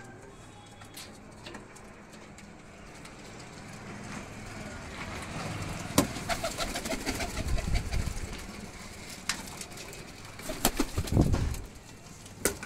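Domestic pigeons cooing, loudest through the middle, with a few sharp clicks and a short low rumble near the end.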